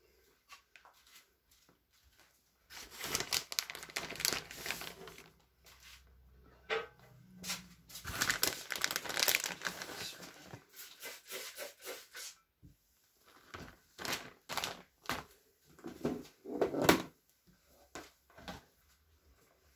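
Plastic food packaging crinkling and rustling in several bouts, with small clicks and taps from a plastic lid, as grated cheese is taken out and sprinkled by hand.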